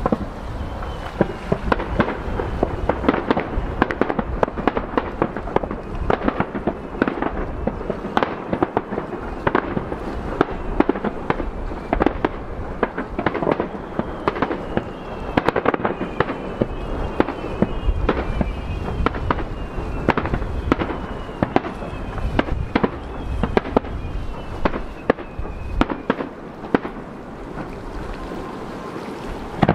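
Fireworks display: a dense, continuous string of bangs and crackles from bursting aerial shells, with a run of short falling whistles through most of it.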